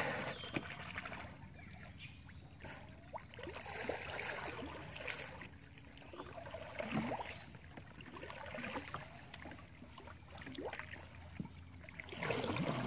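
Water trickling and lightly splashing around a kayak on a slow river, with scattered small drips and splashes.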